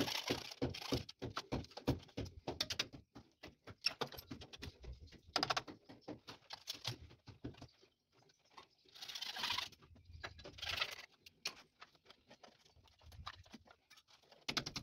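PVC electrical conduit being handled and pushed into the knockouts of metal electrical boxes: a quick run of light clicks and knocks, then a few longer scrapes of plastic against metal and concrete.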